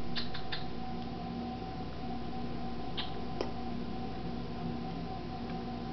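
Quiet room tone with a steady hum. A few faint, brief high-pitched sounds come near the start and about three seconds in, and a single click follows shortly after.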